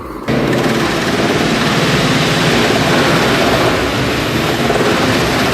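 Heavy wood-processing machinery running: a loud, steady engine-like noise mixed with a dense rushing noise, starting abruptly at the very beginning.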